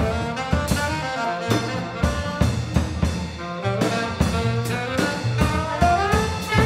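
Jazz band playing: trumpet, trombone and alto saxophone carry a melody over held double-bass notes and regular drum-kit hits. Near the end the horn line climbs.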